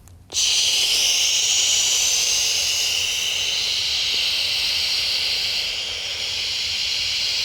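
One long, forceful exhale hissed out through the mouth, starting abruptly and held steady for about seven seconds before fading away.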